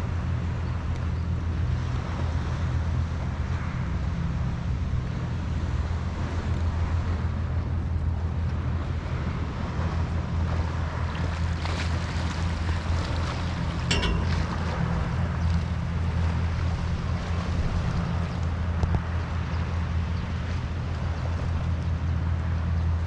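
Steady outdoor harbourside ambience: a constant low rumble with wind blowing on the microphone and a hiss of wind and water, broken by a single faint click near the middle.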